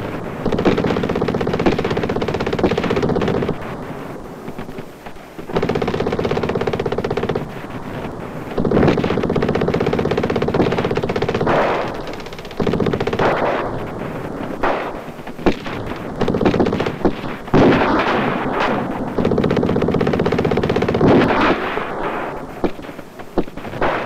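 Automatic gunfire in about six long bursts of one to three seconds each, with sharp single shots in between.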